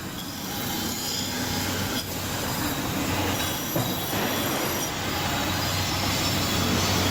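Heavy-duty foundry wheel grinder grinding a metal casting: the abrasive wheel gives a steady hiss with thin, high squealing tones over a low motor hum.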